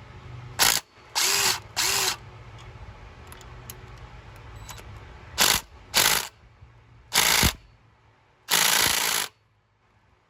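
A power ratchet running in about eight short bursts, each under a second, spinning T45 Torx bolts out of the MultiAir brick.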